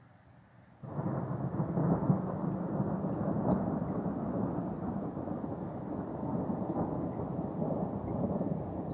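Thunder: a sudden crack about a second in, then a long rolling rumble that carries on with little let-up.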